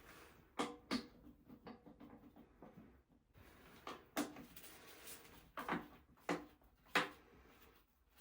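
Half a dozen sharp knocks and clunks, irregularly spaced, the loudest near the end.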